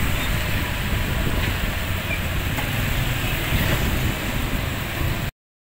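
Street traffic noise: motorbike engines running along a narrow lane, a steady rumble with hiss that cuts off suddenly near the end.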